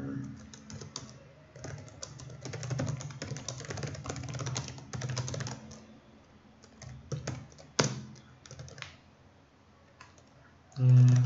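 Typing on a computer keyboard: a fast run of keystrokes for about six seconds, then a few scattered key presses. Near the end comes a brief, loud, low vocal sound.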